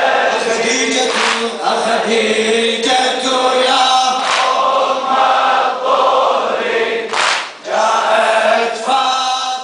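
A crowd of men chanting a Shia latmiya lament together in unison.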